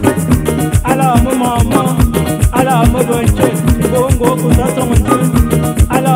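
Upbeat background music with a steady drum beat, a fast shaker and plucked guitar.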